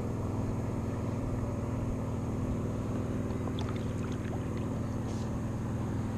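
A boat motor running at a steady pitch on the water, with a few faint clicks around the middle.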